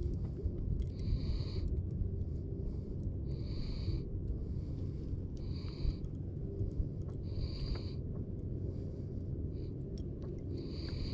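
Wheezy nasal breathing close to the microphone, one short whistling breath about every two seconds, over a steady low rumble.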